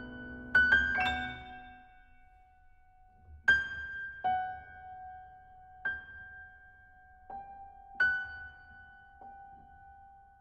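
Slow, sparse piano music: single high notes struck a few seconds apart, each ringing and fading, over a low chord that dies away in the first two seconds.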